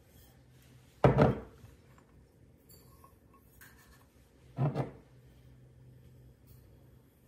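Two brief dull knocks with a short scraping tail: a metal tin can being set and pressed down in a glass mixing bowl of semolina, about a second in and again about four and a half seconds in.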